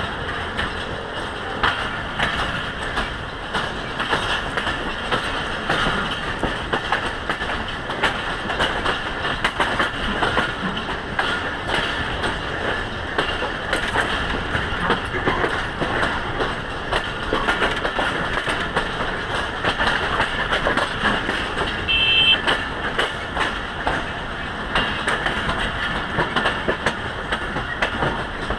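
Pakistan Railways passenger coach running as the train pulls out of the station, heard from its open doorway: a steady rail rumble with irregular clicks of the wheels over the track. About 22 seconds in there is a brief high tone.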